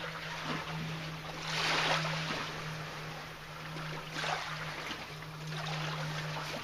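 Sea water washing over shoreline rocks and seaweed, swelling in surges about two seconds in and again near four seconds, with a steady low hum underneath.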